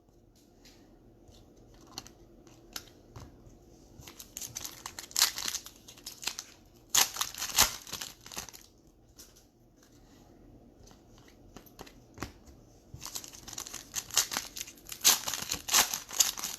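Foil trading-card pack wrappers crinkling and being torn open by hand, in several bursts of rustling with light clicks and card handling in the quieter stretches between.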